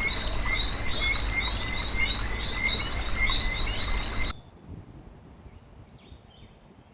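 A chorus of frogs calling, many short repeated chirps over a steady high ringing, which cuts off abruptly about four seconds in, leaving a quieter stretch with a few faint chirps.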